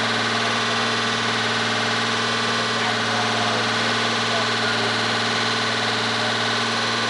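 Honda engine idling steadily, heard at the exhaust tailpipe, with a steady hiss of exhaust flow. It is running with head gasket sealer circulating to seal a blown head gasket.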